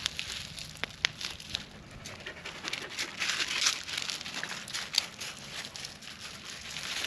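Plastic packaging crinkling and rustling as it is pulled off a new bike frame, with a few sharp clicks.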